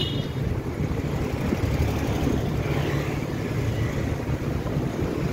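Steady rumble of wind buffeting the microphone of a moving bicycle, mixed with road and light traffic noise.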